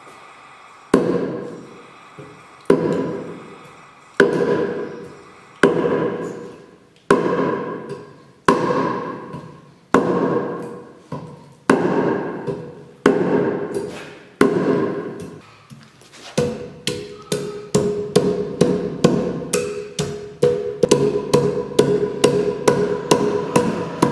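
Hand-forged mortise axe chopping into a small log: single blows about every second and a half, each with a long fade, then coming faster, about three a second, for the last third. Background music runs underneath.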